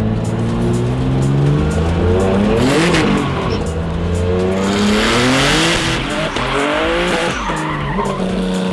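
BMW drift car's engine revving up and down several times while its rear tyres squeal in a slide. The tyre squeal is loudest a little past the middle.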